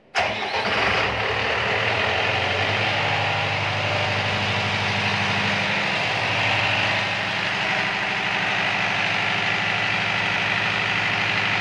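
Ship's diesel generator engine started from its control panel: it comes to life at once and runs steadily. This is its test run after an oil and fuel filter change.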